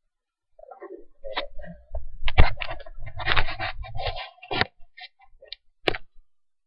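Handling noise close to the camera's microphone: a dense stretch of rubbing, scraping and knocks, then a few separate sharp clicks near the end.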